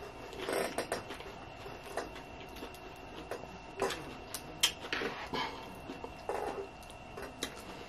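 Soft close-up eating sounds: chewing with small mouth clicks, and a plastic fork and fingers picking through nachos on a paper plate. The sounds come as scattered brief clicks and rustles with quiet gaps between them.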